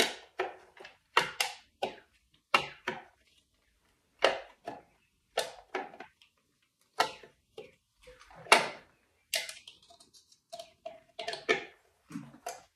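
Irregular sharp clicks and taps, a dozen or more with short gaps between, of hands and a small tool working on a snowbike's plastic brake cover.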